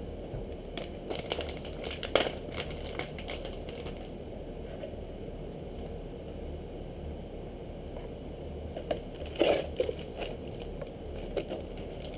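Plastic soft-bait packaging crinkling and crackling as it is handled, in scattered crackles, loudest about two seconds in and again around nine to ten seconds.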